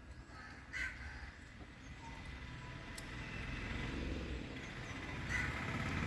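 Two short animal calls, one about a second in and one near the end, over a low outdoor rumble that grows steadily louder.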